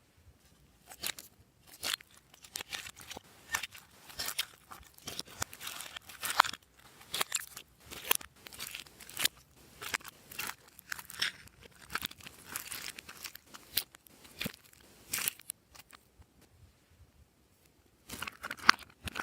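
Glossy slime being squeezed and worked by hand, giving irregular crackling clicks and pops, with a pause of a couple of seconds shortly before the end.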